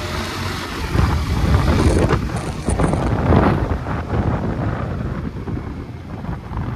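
Wind buffeting the microphone on a moving motorcycle, with engine and road noise underneath; the gusting swells about a second in and eases off after about four seconds.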